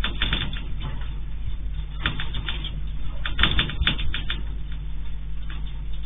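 Security camera microphone during the 7.7-magnitude earthquake: three bursts of rapid crackling and rattling clicks, the last and loudest near the middle, over a steady low electrical hum.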